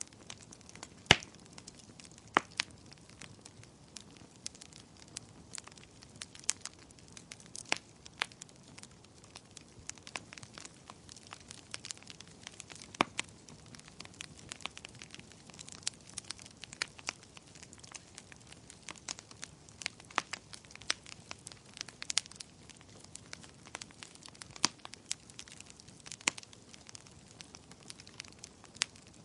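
Fire crackling in a fireplace: irregular sharp pops and snaps over a soft, steady low hiss, with the loudest pop about a second in.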